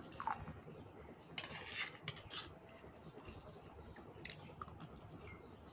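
Faint eating sounds: metal spoons scraping steel plates and people chewing pasta, in a few short, scattered scrapes and clicks.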